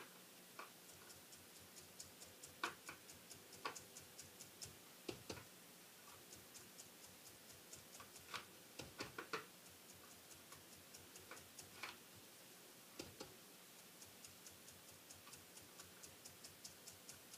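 Faint, quick taps of a stippling brush dabbing ink onto the edges of a cardstock panel, a few taps a second, with a few louder knocks now and then.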